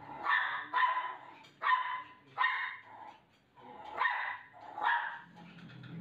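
Small dog, a Shih Tzu, barking: six short barks in three rough pairs.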